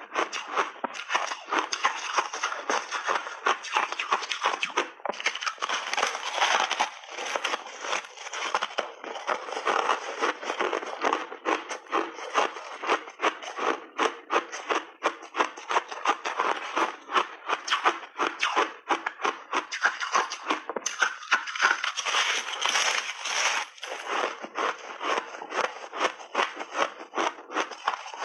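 Ice being bitten and chewed close to the microphone: a dense run of sharp crunches and cracks, many a second, with a few brief breaks between bites.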